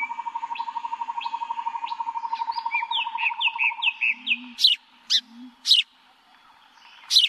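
Birds chirping in a nature-ambience sound effect. A fast, steady trill runs through the first four seconds, then comes a quick string of short falling chirps and several sharp, high chirps.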